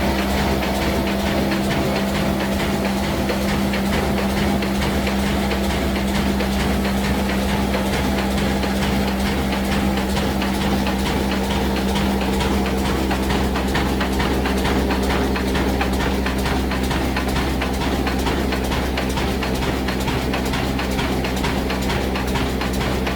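Old diesel 'black engine' running steadily under load, driving a flour mill (atta chakki).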